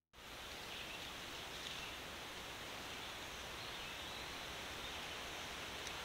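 Steady forest ambience: an even hiss of wind moving through the trees and leaves.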